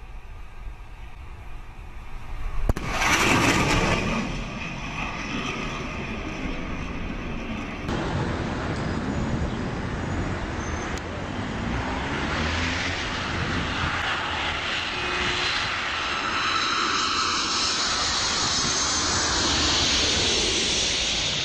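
Jet aircraft passing low overhead: the engine noise comes in suddenly about three seconds in and peaks loudly, then steady jet noise continues, growing a little louder toward the end.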